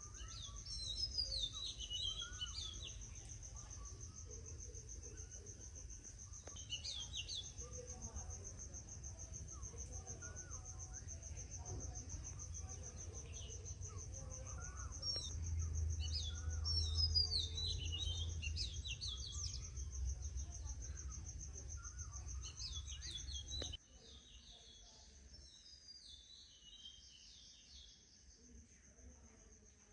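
Outdoor garden ambience: insects keep up a steady, high, fast-pulsing trill while birds sing short twittering phrases every few seconds. A low rumble runs underneath and stops abruptly about 24 seconds in, after which the trill and birdsong carry on more faintly.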